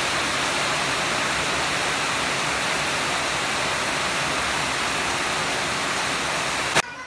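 Heavy rain pouring down, a steady even hiss that cuts off abruptly near the end.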